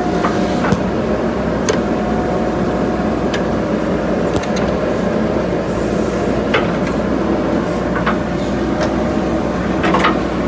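JCB 3DX backhoe loader's diesel engine running steadily under work, with several sharp knocks scattered through it from the working machine.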